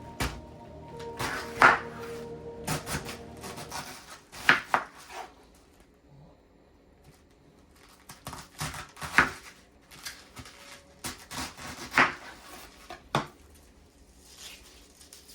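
Knife chopping a cabbage on a cutting board: irregular sharp knocks, some hard, with a quieter pause in the middle. Background music plays under the first few seconds.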